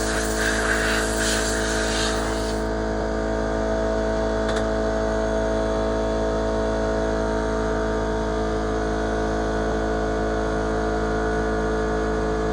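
Electric air compressor running with a steady hum, having just kicked on. For the first two seconds or so a compressed-air blow gun hisses, then stops while the compressor keeps running.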